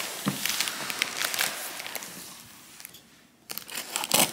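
Large cardboard furniture carton rustling and scraping as it is handled and lowered onto the floor. Near the end, scissors crackle through its packing tape and plastic wrap in a run of sharp clicks.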